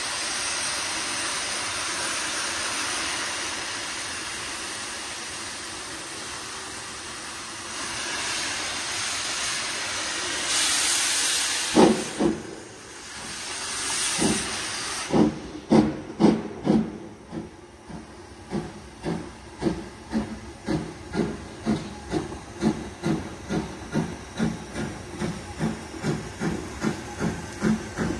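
Steam locomotive hissing steam while standing, then starting its train: after a sharp blast about twelve seconds in, the exhaust beats begin and quicken into a steady chuffing, with steam hissing from the open cylinder drain cocks.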